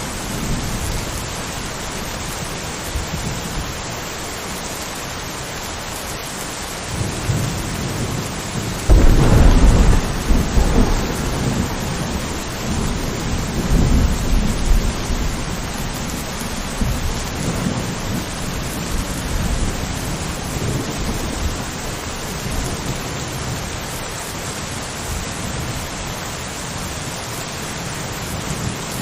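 Steady rain falling in a thunderstorm. Low thunder builds, then breaks into a loud clap about a third of the way in and rumbles on for several seconds before dying away, leaving the rain.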